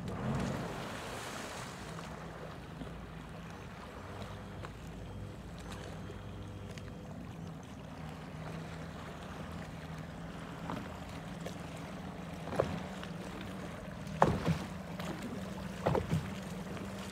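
A Four Winns 180 bowrider's 200 hp Volvo Penta SX sterndrive engine running at low speed, a steady low hum that shifts a little in pitch. A few short, sharp water splashes come close by near the end.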